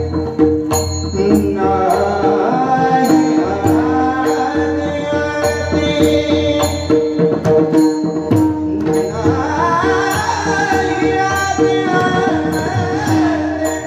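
Warkari kirtan devotional music: men singing a chal with a pakhavaj drum, sharp metallic strikes keeping a steady beat, and a steady held drone underneath.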